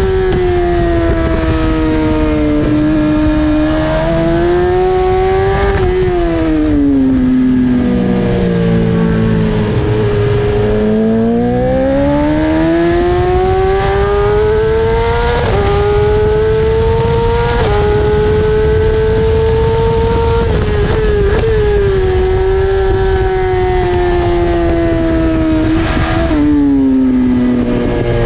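BMW S1000RR's inline-four engine at high revs on track, working through the gears. The revs drop in steps with downshifts from about six to ten seconds in, climb again with quick upshifts around fifteen and eighteen seconds, and fall with downshifts once more near the end.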